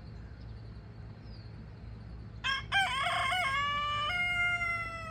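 A rooster crowing once, starting about halfway through: a few broken opening notes, then a long held final note that falls slightly in pitch.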